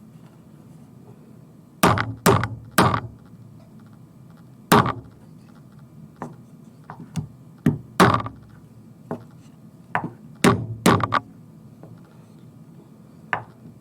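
A hammer tapping a glued wooden axle peg into the wooden body of a small kit car to fix the front wheel: about a dozen sharp knocks in irregular groups of two or three, starting about two seconds in.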